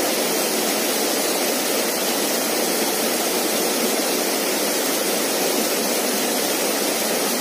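Small waterfall pouring into a rocky pool: a steady, even rush of splashing water.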